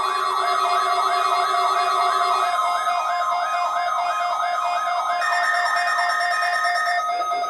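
Weather radio alert tones during a required weekly test: a warbling siren-like alarm rising about three times a second, layered with several steady tones that drop in and out. These are the attention signals that set off weather-alert receivers.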